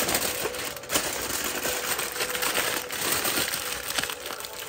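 Aluminium foil being crumpled, folded and crimped by hand around a wrapped parcel of meat: a continuous crinkling with sharp crackles.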